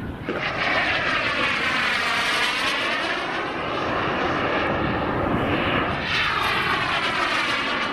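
Turbine-powered RC jet, a CARF Models Mephisto, flying fast passes: a loud rushing jet sound that sweeps down and back up twice as the model goes by.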